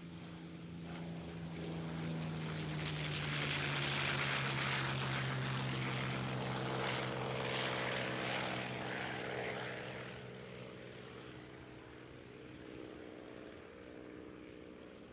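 Piston-engined propeller aircraft taking off at full power as a pair, passing by: the engine sound swells to its loudest about four to eight seconds in, drops a little in pitch as they go past, then fades as they climb away.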